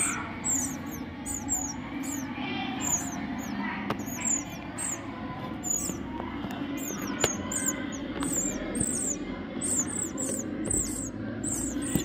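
Songbird nestlings begging: a rapid, continuous run of high-pitched, downward-sliding cheeps, about two to three a second. A few sharp clicks sound over them.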